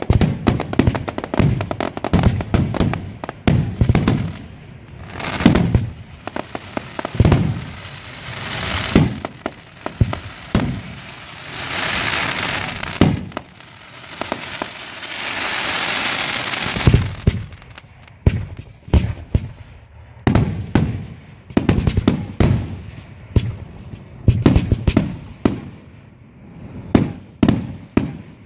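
Fireworks display: a rapid, irregular series of sharp bangs from bursting shells. In the middle come two longer stretches of dense hiss and crackle, each lasting a couple of seconds.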